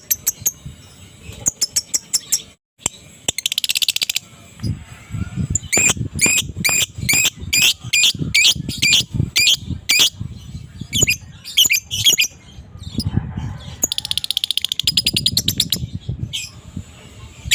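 Lovebird calling: a run of sharp, high chirps about two a second, broken twice by a fast chattering trill (the 'ngekek' of a fighter lovebird), about three seconds in and again near the end.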